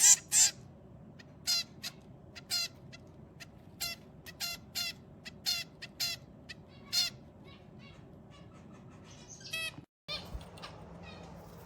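Zebra finches calling: short repeated calls at uneven intervals, about one or two a second, thinning out toward the end.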